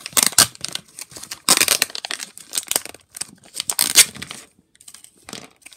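Plastic blind-bag toy packet crinkling and tearing as it is handled and pulled open by hand, in loud irregular bursts through the first four seconds, then quieter.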